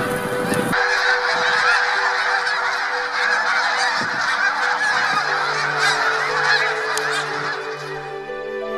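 A large flock of snow geese calling all at once, a dense chorus of overlapping honks that starts abruptly just under a second in.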